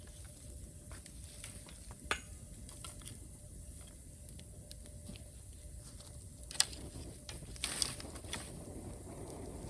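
Bamboo campfire crackling softly, with a few sharp pops: one about two seconds in and two more near the end.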